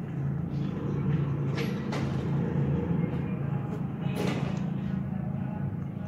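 Steady low mechanical hum, with a few brief clicks about one and a half, two and four seconds in.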